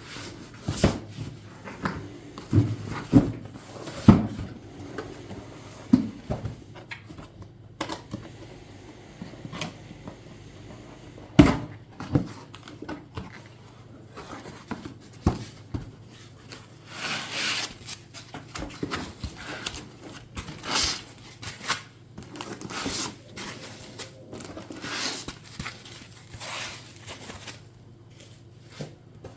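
Cardboard box and packaging being handled and opened: a series of sharp knocks and clicks, then stretches of rustling and tearing of packing material in the second half.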